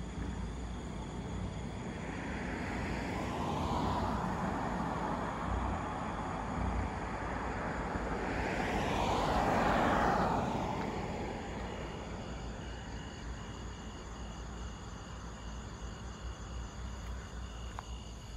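Two vehicles driving past on an asphalt road, each swelling and fading with a sweeping pitch as it goes by. The second, a pickup truck, is the louder, peaking about ten seconds in.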